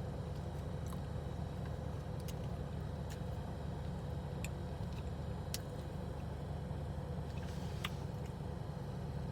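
Steady low hum of a car's engine idling, heard from inside the cabin, with a few faint, scattered clicks.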